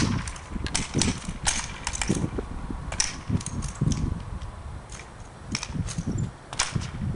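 Sharp, irregular clacks and slaps of a color guard practice rifle being spun, tossed and caught in the hands, a dozen or more quick knocks.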